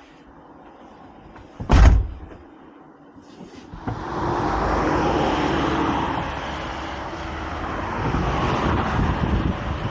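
A vehicle door shuts with a single heavy thump just under two seconds in. From about four seconds there is the steady rushing noise of a vehicle under way, with wind on the microphone.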